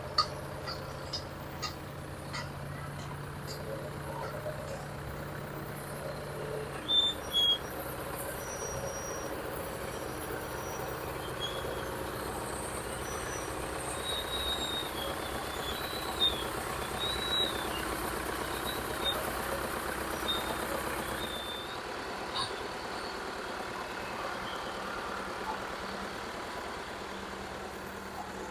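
Heavy vintage machinery engine running steadily, with short high-pitched squeals scattered through the middle and a few sharp clicks about seven seconds in.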